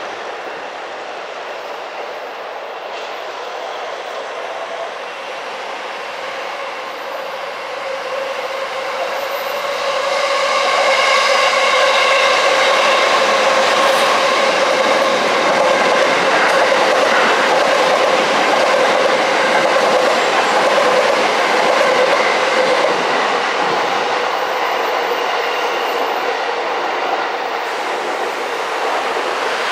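Electric train running past on the tracks, with a steady noise and several steady tones above it. It grows louder about ten seconds in and eases off a little near the end.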